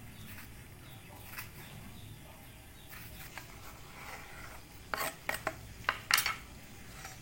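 Knife slicing a tomato thinly: faint scraping and light taps, then a quick run of sharp knocks of the knife about five seconds in.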